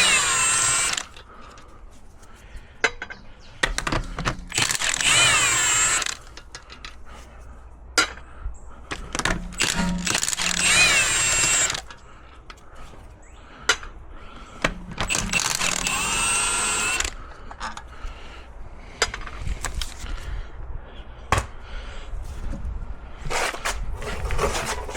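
Cordless impact wrench spinning the rear wheel bolts, in four separate runs of one to two seconds, its pitch rising and falling within each. Short clicks and knocks come between the runs.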